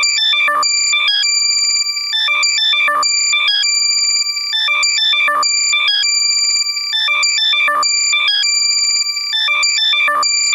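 Loud, compressed electronic alert tone for finding a lost AirPod: a pattern of quick high chirps and held piercing beeps that repeats about every two and a half seconds.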